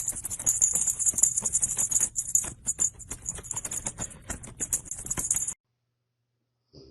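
Rapid, dense rattling of something being shaken, cutting off suddenly about five and a half seconds in.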